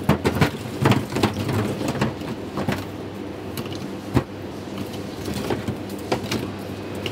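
Raw animal feet (trotters) knocking and clattering against each other as they are piled by hand in a butcher's display case: irregular knocks, thickest in the first few seconds, over a steady low hum.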